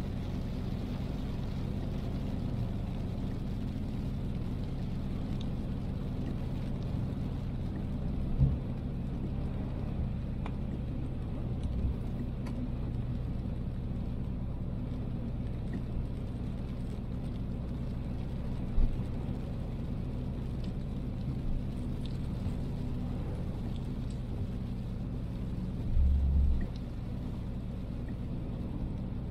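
Car driving in heavy rain: a steady low rumble of engine and road noise under a faint hiss. A few short low thumps break it, and a slightly longer one comes near the end.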